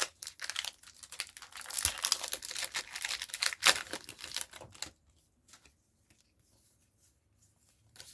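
Foil Pokémon booster pack wrapper being torn open and crinkled: a dense crackling rustle that stops about five seconds in, leaving only a few faint ticks.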